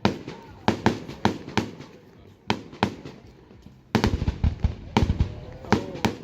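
Aerial fireworks shells bursting in an irregular series of sharp bangs, with a heavier, denser volley of deep booms from about four seconds in.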